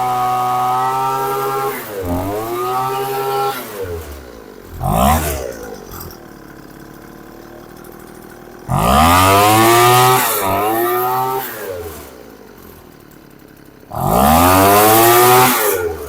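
Craftsman 215 mph handheld leaf blower's two-stroke engine running after a tune-up: idling, then revved up to full throttle three times, the loudest runs lasting about two seconds each, and dropping back to a low idle between them.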